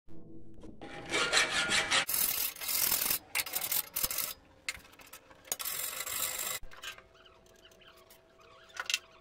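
Hand file rasping across a forged steel piece held in a vise, in several long strokes of about a second each. It goes much quieter for the last couple of seconds.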